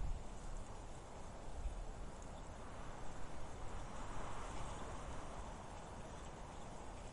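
Wind blowing as a steady rushing noise that swells into a gust around the middle, with low rumbling buffets underneath.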